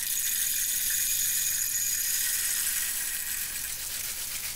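Whole black peppercorns pouring in a steady stream into a stainless steel grinder cup: a continuous dense rattle of small hard corns on metal, easing a little near the end.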